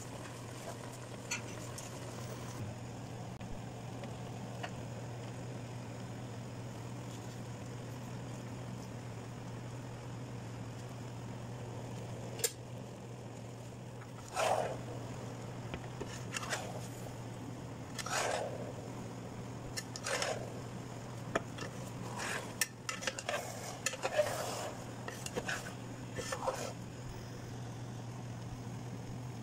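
A metal slotted spoon scraping and clinking against a metal pot of rice: a string of short separate scrapes and knocks starting about halfway through, over a steady low hum.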